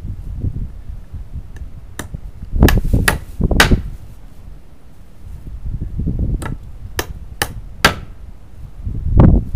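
Hammer driving nails into a wooden board: a light tap about two seconds in, then three quick strikes, a pause with handling noise while a nail is set, and three more strikes near the end.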